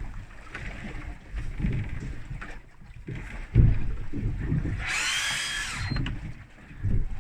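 Wind buffeting the microphone in uneven gusts over the low noise of a boat at sea, with a single high mechanical whine lasting about a second a little past halfway.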